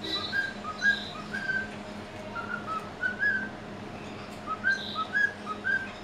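White-faced cockatiel whistling a tune: a phrase of short whistled notes stepping up and down, a pause, then another phrase, with a couple of brief higher chirps.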